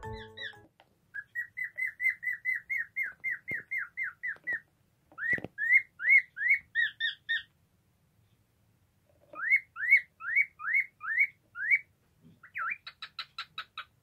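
Cockatiel chirping: runs of short, rising chirps at about four a second, broken by two brief pauses, coming faster near the end.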